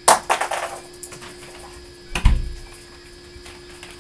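A wooden room door's latch clicks shut with a short rattle, then a heavier thump about two seconds in.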